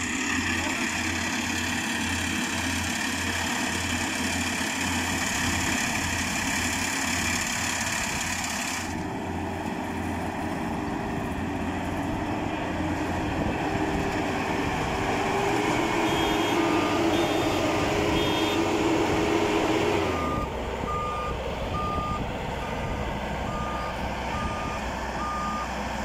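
FMWorld crawler combine harvester running, its engine loud and steady, with a steady whine that stops about three-quarters of the way in. From a little past halfway, a warning alarm beeps about once a second.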